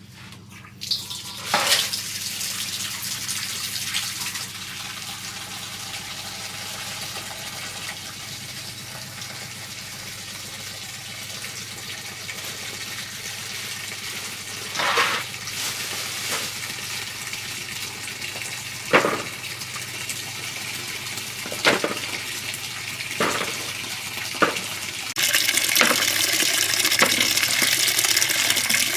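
Water running steadily over a steady low hum, with several sharp knocks in the second half. The flow gets louder about 25 seconds in.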